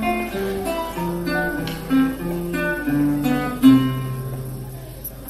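Classical guitar played solo: a plucked melody over bass notes, ending on a last strong note about four seconds in that rings and fades away.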